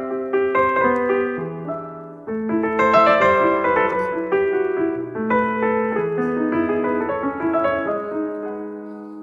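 Piano music: a gentle melody of single notes and chords. One phrase fades out about two seconds in and a new one starts.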